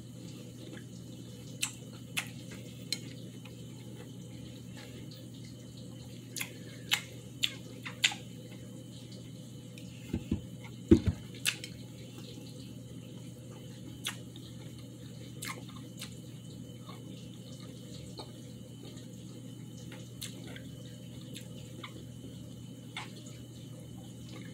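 Wet mouth sounds of someone eating juicy ripe cantaloupe: irregular sharp smacks and slurps while chewing, over a steady low hum, with a couple of louder low bumps near the middle.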